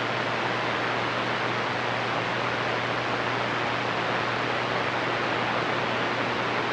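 CB radio receiver on channel 28 hissing with steady static and a low hum, no station coming through: the skip has faded out.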